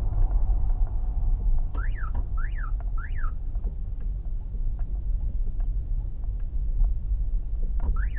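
Low rumble of a car driving, heard from a dashcam inside the cabin. About two seconds in come three quick chirps, each rising and then falling in pitch, and two more near the end.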